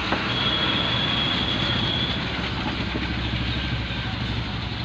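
Steady low mechanical rumble with hiss, like an engine running, with a thin high whistling tone that lasts about two seconds near the start.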